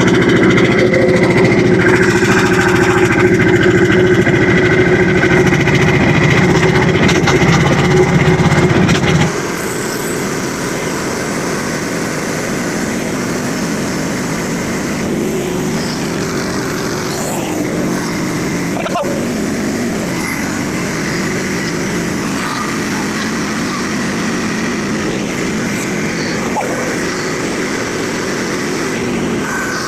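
Pull-started small gasoline engine of a Frontier OS27 sawmill running steadily. About nine seconds in, the sound drops suddenly to a quieter, rougher steady run.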